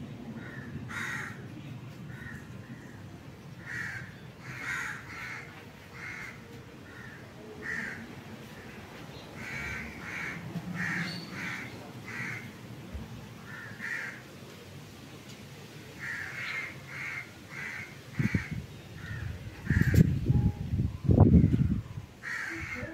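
Crows cawing repeatedly, with short calls every second or so. Near the end comes a run of loud, low thumps and bumps.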